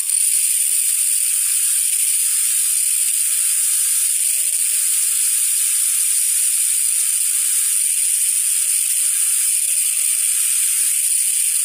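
High-speed dental handpiece whining steadily at a high pitch as its bur grinds a 45-degree functional cusp bevel into the palatal cusp of a typodont upper premolar.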